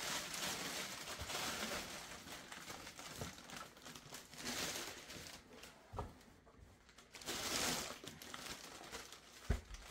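Clear plastic packaging bag crinkling and rustling in waves as it is handled, with a dull knock about six seconds in and another near the end.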